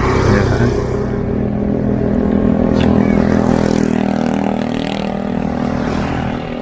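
Small motor scooters riding past close by on a paved road, their engines buzzing louder as they approach and dropping in pitch as they go by.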